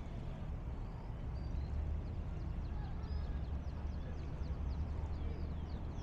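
Harbour ambience: a steady low rumble under small birds twittering in quick, high chirps, busiest in the middle.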